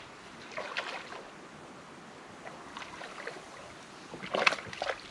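Hooked fish thrashing and splashing at the water's surface close to the bank. There are a few splashes about a second in, and a louder run of splashes from about four seconds in, the loudest at about four and a half seconds.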